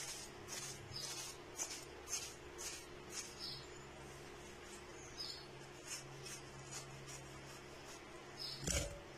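Kitchen knife slicing through watermelon flesh: short, crisp cutting strokes, about two a second at first and then sparser. A single louder thump comes near the end.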